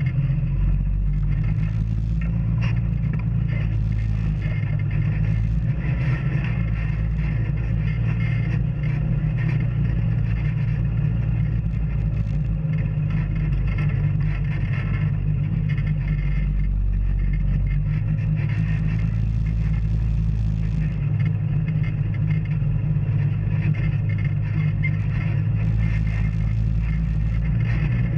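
Off-road vehicle engine running steadily on a trail, with light rattling and scraping now and then.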